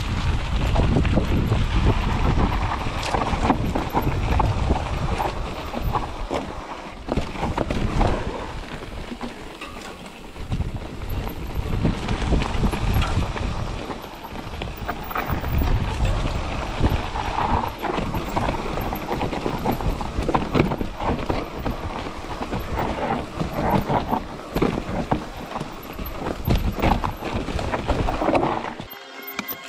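Mountain bike rattling and clattering over rocks and roots on a fast descent, with dense irregular knocks from the chain, suspension and frame. Wind rumbles on the camera's microphone throughout. The noise drops away shortly before the end.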